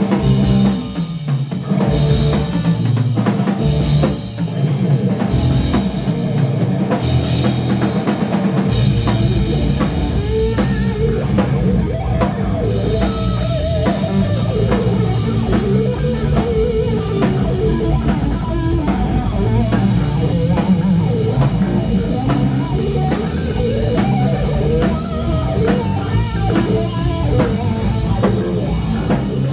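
Rock band playing: electric guitar over a drum kit. The first eight or nine seconds are loud repeated cymbal-and-drum hits about once a second, then the bass fills in and the full band plays on steadily.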